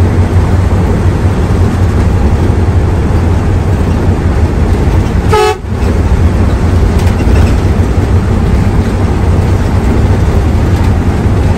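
Hino AK3HR Ranger bus's diesel engine running under way with a steady low drone and road noise, broken about halfway through by one short horn toot.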